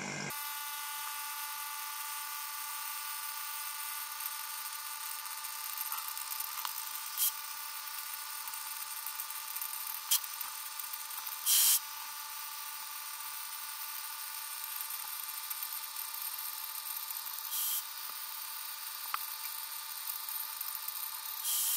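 Small electric vacuum pump running steadily with a buzzing whine as it pulls a vacuum on a chamber of timber lures soaking in polyurethane, drawing the air out of the wood. Several short hisses break in, the longest about halfway through, as air is let into the chamber to knock down the rising bubbles.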